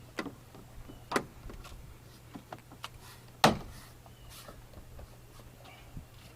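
Plastic door trim cover being pressed onto a pickup's rear door panel, its clips snapping into place with a few sharp clicks, the loudest about halfway through.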